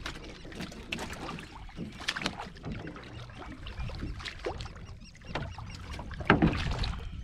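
Irregular knocks and clatter on the planks of a small wooden fishing boat as the catch is handled in its fish hold, with a louder cluster of knocks about six seconds in.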